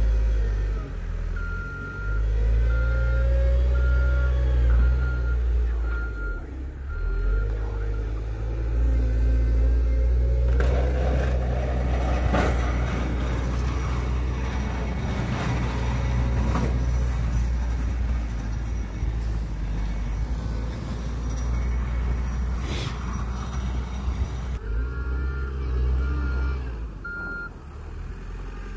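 CAT 906 compact wheel loader's diesel engine running under load while it works a Metal Pless snow pusher. Its reversing alarm beeps about once a second near the start and again near the end. There is a louder, noisier stretch in the middle.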